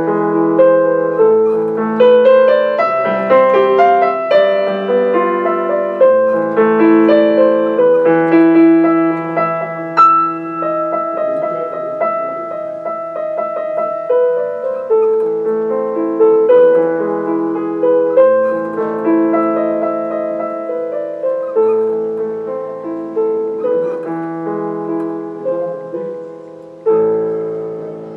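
Solo classical piece played on a digital piano: a busy run of notes and chords that thins out toward the end, where one loud chord rings and fades.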